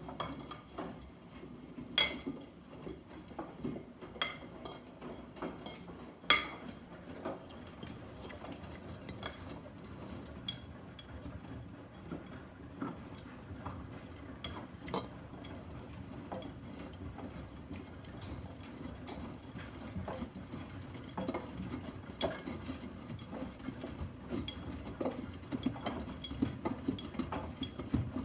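Miele front-loading washing machine running a wash cycle: a steady low rumble from the turning drum, with sharp, briefly ringing metallic clinks every second or two.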